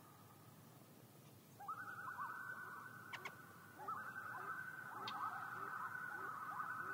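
Common loons giving tremolo calls: fast, wavering strings of notes, one starting about one and a half seconds in and another about four seconds in that runs on. Two short, sharp clicks are heard between them.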